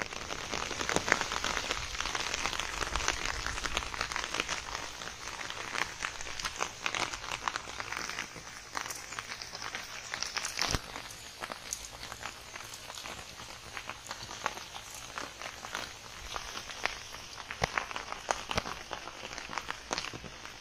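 Rain falling steadily, a continuous hiss sprinkled with many sharp drop sounds, with footsteps on wet ground in the first part.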